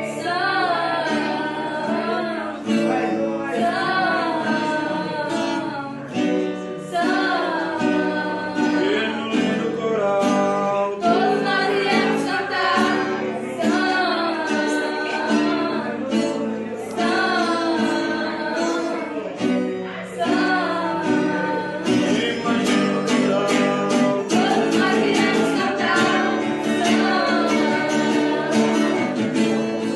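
Pop song with a singer over acoustic guitar, starting fresh just before this point after a short break.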